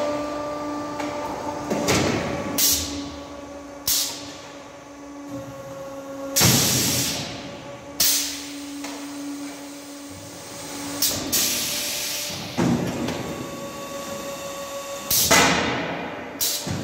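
Fully automatic silage bagging machine cycling through a bagging run: a steady motor hum under repeated short bursts of hissing air and sharp mechanical knocks, the longest hiss about six and a half seconds in.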